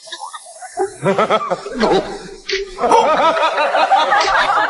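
A person laughing, a voice wavering quickly in pitch, in two stretches; the second, beginning about three seconds in, is longer and louder.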